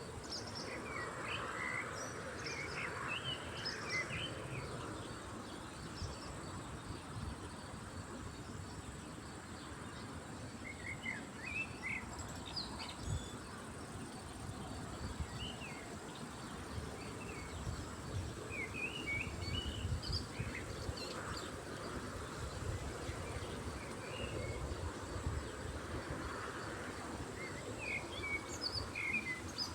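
Small birds chirping and twittering in short, scattered calls over a steady outdoor background, with a faint steady high hiss and a low rumbling underneath.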